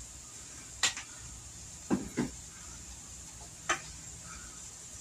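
A few small knocks and clicks of hands handling food at a kitchen table while stuffing cooked manicotti shells: one about a second in, a quick pair at about two seconds, and one near four seconds, over a steady low hiss.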